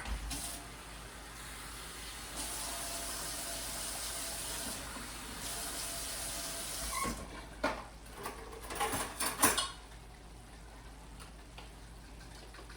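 Kitchen tap running water for about seven seconds, then a few sharp clinks and knocks.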